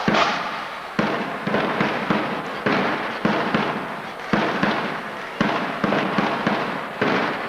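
Sharp, uneven drum beats, about one to two a second, each ringing on in the reverberant sports hall.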